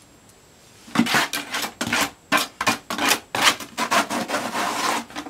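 Repeated gritty scraping and rubbing as wet concrete mix is scooped by hand out of a plastic construction bucket, starting about a second in as a quick run of short strokes.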